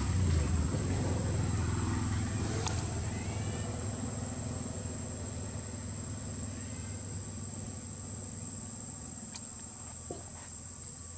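Outdoor forest ambience: a steady high insect drone, with a low rumble that is loudest at the start and fades away over the first few seconds.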